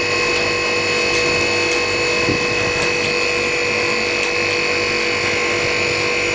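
LCD screen freezer machine running with a steady hum and a high whine, with a few faint ticks over it.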